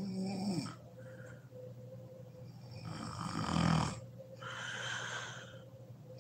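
A sleeping woman snoring: a short snore right at the start, then a louder rattling snore about three seconds in, followed by a long breathy rush of air.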